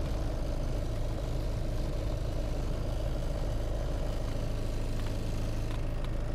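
Cessna 182's single piston engine and propeller running at low power while the plane rolls along the runway, heard inside the cockpit as a steady low drone.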